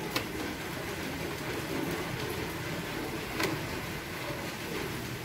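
Steady low background rumble with two sharp clicks, one just after the start and one about three and a half seconds in.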